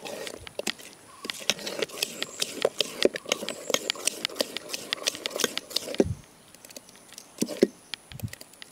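Spoon stirring thick fermented rice batter in a steel pot, with quick irregular clinks and scrapes of the spoon against the metal. The stirring stops about six seconds in, leaving a few scattered knocks.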